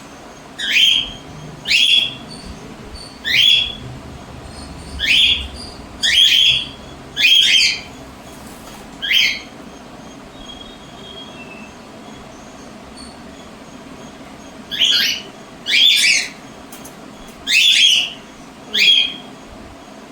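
Cockatiels calling: loud, short screeches that rise in pitch, about eleven of them, seven in quick succession, then a pause of some five seconds before four more.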